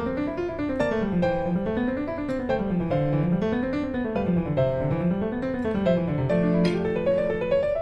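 Background music: piano-led instrumental with a rolling bass line rising and falling in repeated waves.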